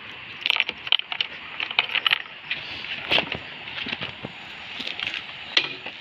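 A bunch of keys jangling and clicking against a motorcycle's ignition lock as the key is worked in it: a scattered run of sharp metallic clicks and jingles.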